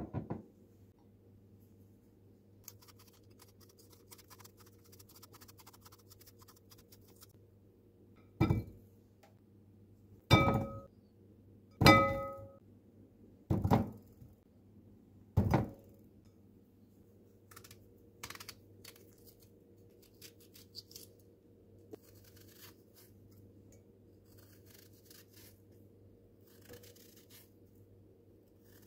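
Five heavy thunks, each with a short glassy ring, coming every one and a half to two seconds: peeled apples being set down into a cut-glass bowl. Before and after them a knife scrapes softly as apples are peeled and sliced.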